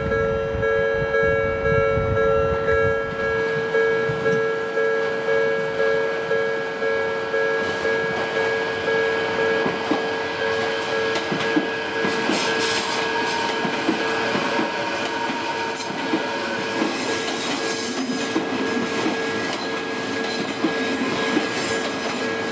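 Japanese railway crossing alarm ringing its repeating bell at a steady pace; from about halfway, a commuter electric train runs past, its wheels clattering over the rail joints.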